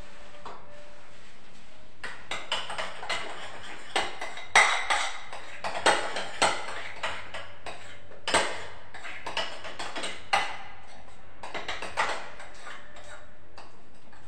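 A spoon clinking and scraping against a bowl as cream is stirred, in irregular knocks that start about two seconds in.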